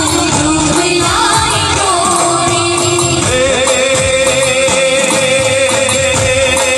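Live Gujarati garba folk music played loud through a PA: female voices singing over dhol and drum rhythm. A long held note steps up in pitch about three seconds in.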